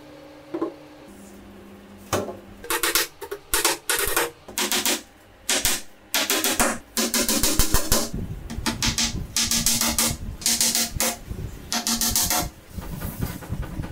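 Claw hammer driving nails through a laminated particleboard desktop into the side panels below: a long run of sharp blows, some in quick clusters, starting about two seconds in.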